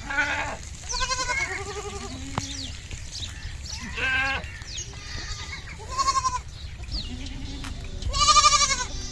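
Goats bleating, young goat kids among them: a string of separate wavering calls from several animals, some high-pitched and some low, the loudest about eight seconds in.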